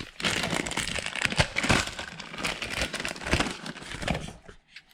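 Packaging crinkling and rustling as a new car door handle is unwrapped by hand: a dense run of crackles that stops shortly before the end.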